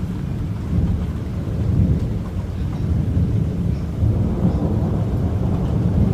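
Thunder rumbling on and off, a long rolling low rumble that swells and fades with no sharp crack.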